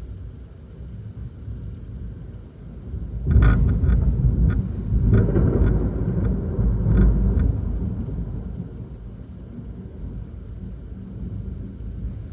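Thunder: a sudden loud burst about three seconds in, with a series of sharp crackles over the next few seconds, then a low rumble that slowly fades.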